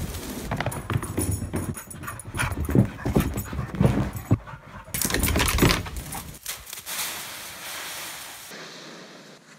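A yellow Labrador retriever and another dog play-fighting, with dog panting and short vocal sounds. About six and a half seconds in, this gives way to a quieter steady hiss.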